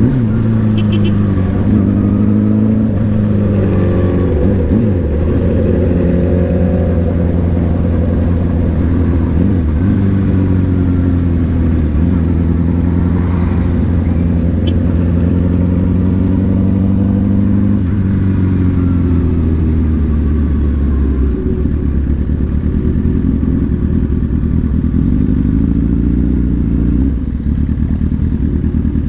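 Motorcycle engine under way, its revs climbing and dropping back several times, then holding fairly steady for the last third.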